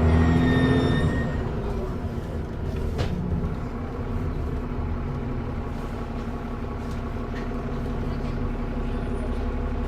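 TransBus Trident double-decker bus's diesel engine heard on board, pulling hard with a faint high turbo whistle, then easing off about a second in and running steadily. A single sharp click comes about three seconds in.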